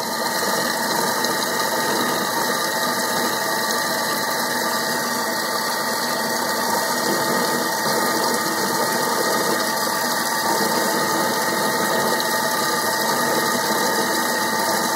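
Thermomix TM6 blending at speed 4, its blade grinding roughly chopped roasted peanuts in peanut oil into smooth peanut butter. A steady, even-pitched motor hum that does not change throughout.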